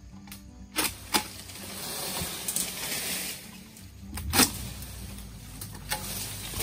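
Oil palm harvesting: a few sharp knocks and a swell of rustling, as fronds and fruit bunches are cut and fall, with the loudest knock about four seconds in.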